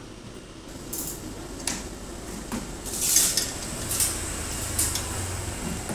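Scattered light metallic clinks and knocks of hand tools and metal parts as a large-format printer's stand and roller bars are put together. A low hum comes in about halfway.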